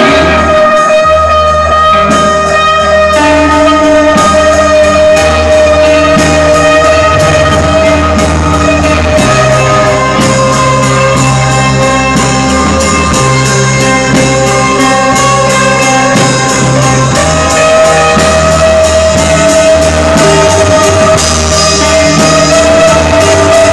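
Live band playing loud instrumental music: guitar with long held notes over bass notes and drums with cymbals.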